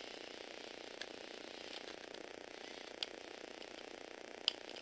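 Motorised Lego Technic bike running, its small electric motor and plastic gears whirring steadily as it rolls slowly over a wooden floor, with three sharp clicks.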